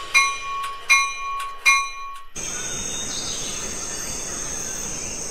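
Three evenly spaced bell-like dings, each ringing out briefly, then an abrupt cut to a steady chorus of chirping crickets.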